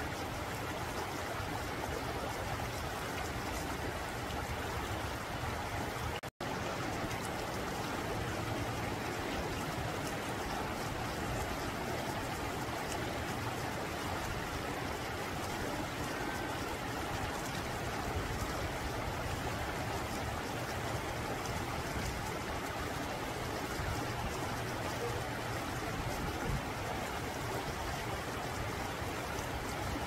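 Shallow rocky mountain stream flowing steadily over and between boulders, an even rush of water, with a momentary dropout in the sound about six seconds in.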